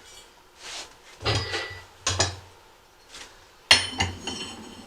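Steel parts of a manual tire changer and ATV rim knocking together as the rim is set on and centered: a few separate metal knocks, the loudest a sharp clang with a ringing tail near the end.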